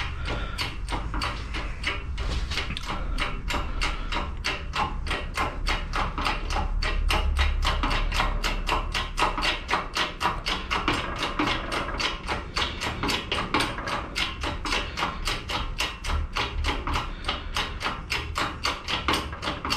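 Hand arbor press forcing a keyway broach down through a fly crank, cutting the keyway slot. It makes a steady run of sharp clicks, about three a second, over a low rumble.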